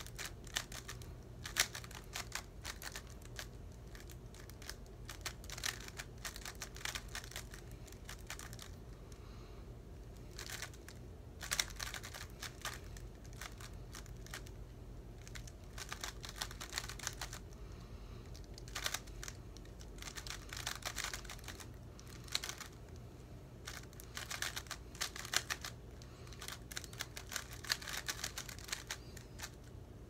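Plastic 3x3 Rubik's cube being turned fast by hand during a speed solve: rapid clacking clicks in bursts, with short pauses between bursts. A low steady hum runs underneath.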